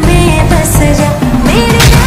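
Loud recorded pop dance music played over speakers, with a melody line and a sharp hit near the end.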